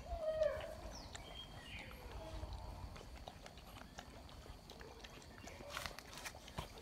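Mudhol hound puppies eating kibble from a steel bowl: scattered clicks and clinks of food and teeth against the bowl, thickest near the end. A few short high-pitched squeaks come in the first two seconds, the loudest about half a second in.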